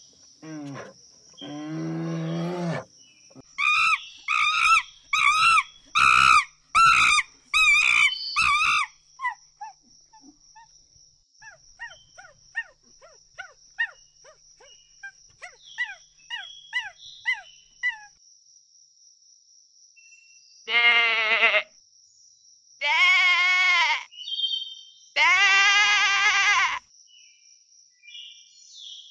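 A string of animal calls: a low call, a quick run of loud wavering cries, then a long stretch of short high chirps. Near the end a sheep bleats three times, long wavering calls.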